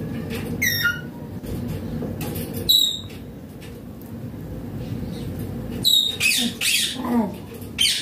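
Indian ringneck parakeet giving short, sharp, high-pitched squawks: one about half a second in, another near three seconds, and a quicker run of calls from about six seconds on.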